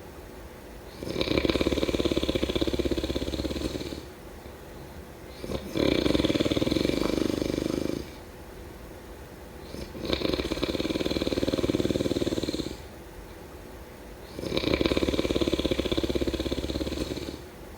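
A person snoring in a slow, regular rhythm: four long, buzzy snores of about two and a half to three seconds each, coming about every four and a half seconds, with quieter breathing between them.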